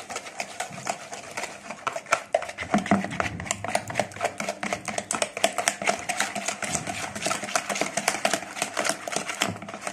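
Plastic hand whisk beating egg yolks with vanilla sugar in a plastic bowl: fast, even clicking strokes against the bowl, several a second.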